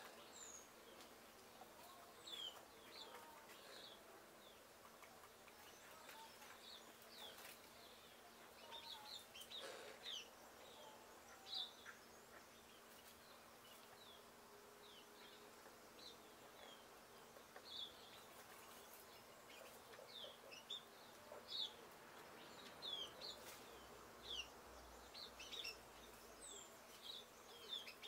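Faint, short, high chirps from small birds, scattered through a quiet background and coming more often in the second half.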